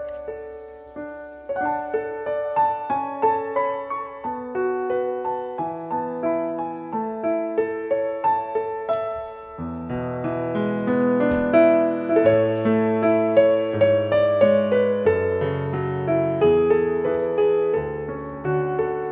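Background piano music: a gentle melody of single notes, with deeper notes joining and the music growing louder about ten seconds in.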